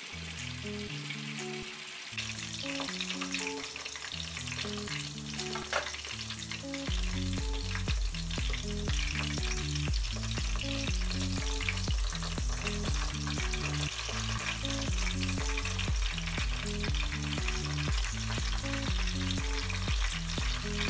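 Pork belly slices deep-frying in hot oil in a pan, a steady crackling sizzle, as the pieces turn golden brown and are moved about with tongs. Background music with a bass line plays underneath, stronger from about a third of the way in.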